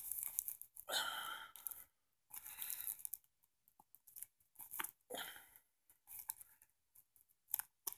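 Plastic shrink wrap on a Blu-ray case being torn and pulled loose, crinkling in four or five short bursts, the longest about a second in, then a few light clicks near the end.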